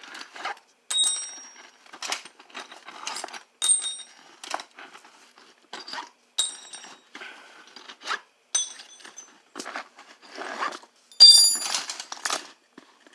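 Steel punches clinking against one another as they are handled and set down: an irregular string of sharp metallic clinks, some with a short high ring, loudest about eleven seconds in.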